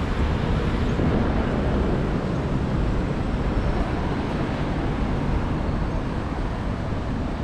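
Steady city street noise: road traffic passing on a busy downtown street.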